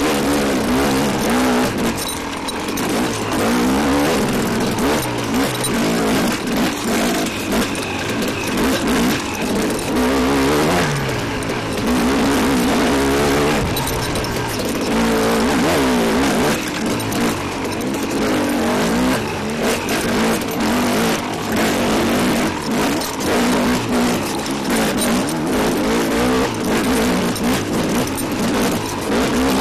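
KTM off-road motorcycle engine revving up and down as the throttle is opened and rolled off along a tight trail, with repeated rising and falling pitch and brief dips in loudness. A steady hiss of wind and trail noise runs under it.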